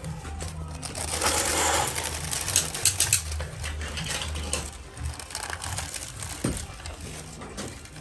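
Plastic wrapping and bags of packed power sockets rustling and crinkling as they are handled and stacked, with a few sharp clicks about halfway through, over a steady low hum.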